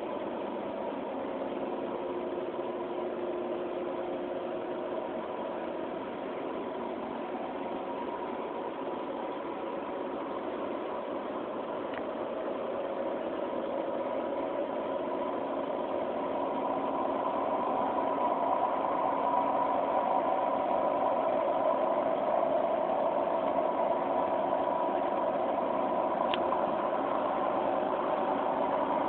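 Steady engine hum made of several held tones, growing louder about halfway through.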